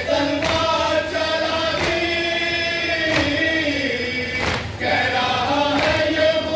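A crowd of men chanting a Muharram nauha lament in unison, holding long notes that step slowly up and down in pitch. Sharp slaps about every 1.3 seconds keep time with the chant, typical of matam chest-beating.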